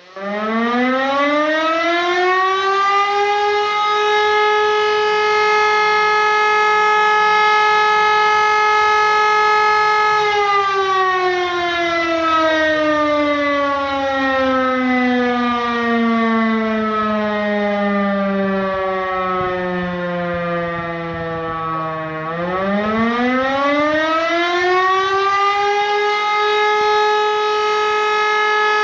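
Civil defence warning siren sounding a test: it winds up to a steady wail within a few seconds and holds it. It then sinks slowly in pitch for about twelve seconds before winding up again to the steady tone near the end.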